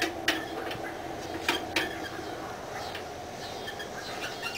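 Sharp metal clinks and taps of lawn tractor parts being handled, three in the first two seconds and a few more near the end, over a steady hum.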